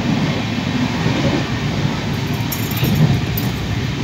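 Passenger train running, heard from inside the coach: a steady rumble and rattle of the carriage on the rails.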